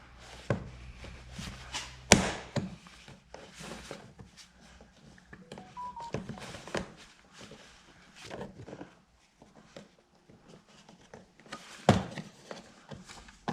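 Plastic door cover on a BMW F20 being pried off with a makeshift tool: scattered clicks and knocks of plastic and tool, with a sharp snap about two seconds in and another near the end as its clips let go.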